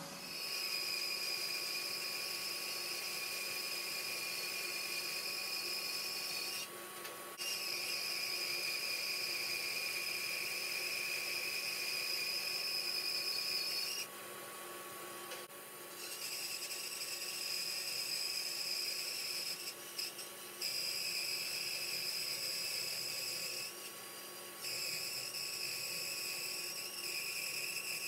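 Record Power bandsaw with a brand-new 6 mm blade running and resawing a thick softwood beam, going through easily. A steady high whine drops out a few times, about 7 s in, for a couple of seconds around the middle, and near the end, leaving the lower hum of the running saw.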